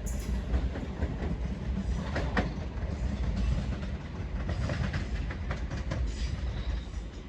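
Class 377 Electrostar electric multiple unit running past, a steady low rumble with the clatter of wheels over rail joints.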